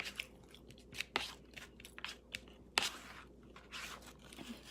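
Quiet, scattered eating sounds: chewing with a few short, light clicks and crunches, the sharpest about a second in and near three seconds in.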